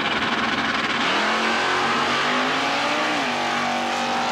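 Two drag-racing cars launching off the starting line about a second in. Their engines rev hard with a climbing note, which shifts pitch again near three seconds.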